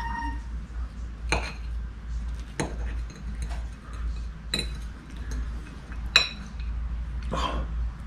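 Metal fork clinking and scraping against a plate while cutting pieces of cooked fish: several sharp, ringing clinks about a second or so apart.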